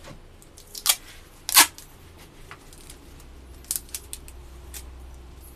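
Adhesive tape being pulled off the roll in short tearing rips as a dog's bandage is taped, several times, the loudest about a second and a half in.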